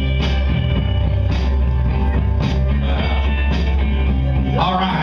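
Rock music with guitar and a drum beat, playing loud, the drum hits landing about once a second. A man's voice starts speaking over it just before the end.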